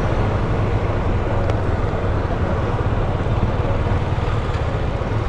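Motorcycle riding over cobblestones: a steady low rumble of engine and tyres on the paving, with no marked change in speed.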